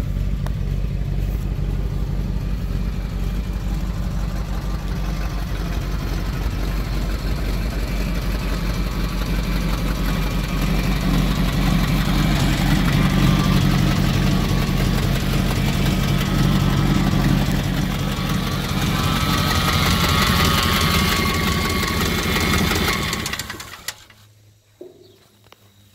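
The engine of a 1985 Chevrolet C70 truck idling steadily. It grows louder partway through, then stops abruptly near the end.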